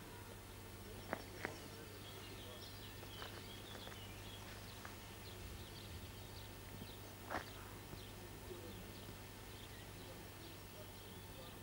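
Birds chirping faintly in many short, quick calls over a steady low hum. There are two sharp clicks a little after a second in and a brief louder noise about seven seconds in.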